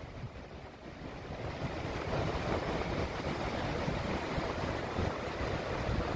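A fast-flowing river in flood rushing through whitewater rapids: a steady rush of churning water that grows louder about a second or two in.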